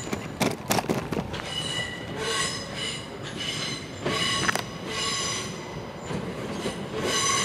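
Steel wheels of an arriving Southern electric train squealing against the rails on the curve into the platform, a high, many-toned squeal that comes and goes about once a second. A few sharp clicks sound in the first second.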